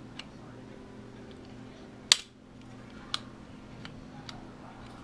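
Parts of a magnetic child safety lock being handled: a few sharp clicks of plastic and metal pieces, the loudest about two seconds in, over a steady low hum.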